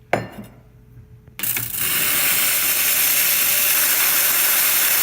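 Quick Mill Lucca M58 espresso machine's steam wand opened: a click, then about a second and a half in a sudden loud, steady hiss of steam. The wand is working normally on its newly replaced steam-assembly sleeve.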